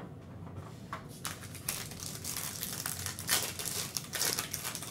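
Foil trading-card pack wrapper crinkling and crackling as it is torn open by hand, a run of rustles that starts about a second in and grows denser toward the end.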